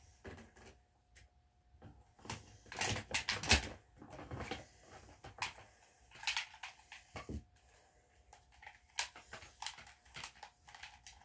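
Rustling and clattering of small household objects being handled, a string of short clicks and knocks with the loudest cluster about three seconds in.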